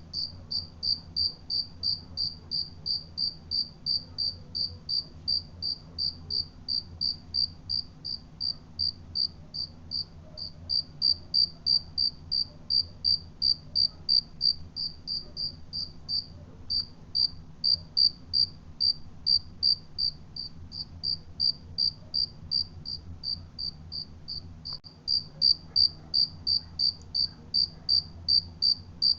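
Cricket chirping, a steady run of short high-pitched chirps at about three a second, with a faint low hum underneath.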